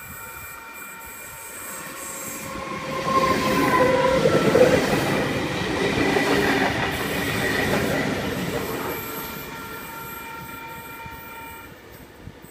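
Sydney Trains V-set double-deck intercity electric train passing close by. It builds up over the first few seconds, is loudest about four to five seconds in, then fades away. Steady squealing tones from the wheels sit over the rumble.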